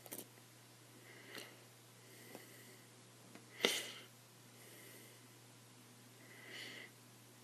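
Faint breathing and a few soft taps, the sharpest about three and a half seconds in, over a steady low hum.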